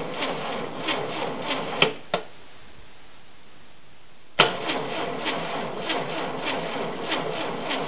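Starter motor cranking a rebuilt air-cooled VW flat-four over without it firing, with an even beat of about three strokes a second. The cranking stops with two clicks about two seconds in and starts again suddenly about two seconds later. The engine is being spun with its ignition coil disconnected to build oil pressure after the rebuild.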